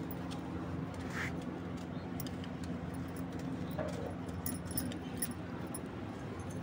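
Faint, light metallic jingling and clicking, as of worn metal jewellery, scattered over a steady low hum.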